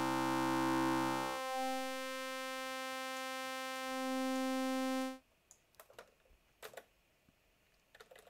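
Software synthesizer sawtooth oscillator played through a high-pass filter with its resonance turned up high, holding one steady pitched tone full of overtones. About a second and a half in, the lowest partials drop out and a strong ringing peak is left. The tone cuts off suddenly about five seconds in, and a few faint clicks follow.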